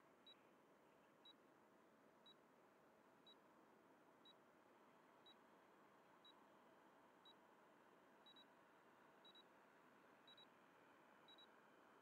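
Faint short high electronic beeps about once a second, which turn into quick double beeps in the last few seconds, over a low steady hiss.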